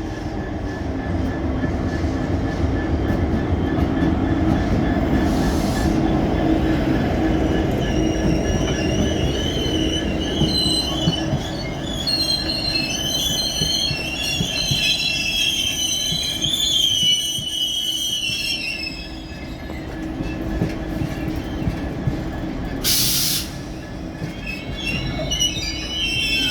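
A train rolling slowly past with a steady low rumble and hum, its wheels squealing in high, wavering tones through the middle and again near the end. Two short hisses break in, one early on the way and one near the end.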